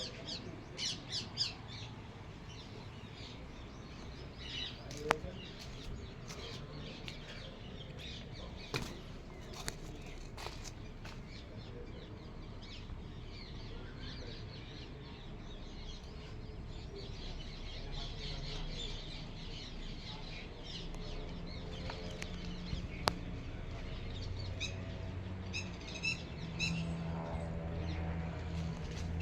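Birds chirping and calling in quick repeated notes, with two sharp clicks. A low steady hum comes in and grows louder near the end.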